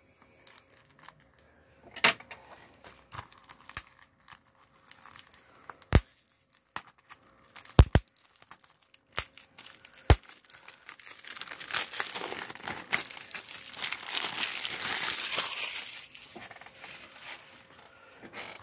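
Plastic shrink-wrap being cut open on a Blu-ray case and peeled off. Several separate sharp clicks in the first half, then about five seconds of continuous crinkling as the wrap is pulled away.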